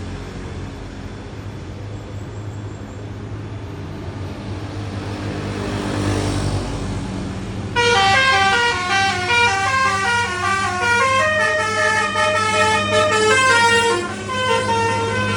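A bus's Basuri 'telolet' musical horn plays a quick tune of short stepped notes, starting about eight seconds in and louder than anything else. Before it, an engine runs steadily under road noise.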